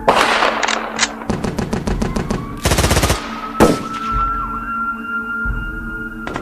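Gunfire sound effects: rapid bursts of automatic gunfire at about a dozen shots a second, with a louder single shot about three and a half seconds in. A faint, slowly rising wailing tone like a distant siren runs underneath through the second half.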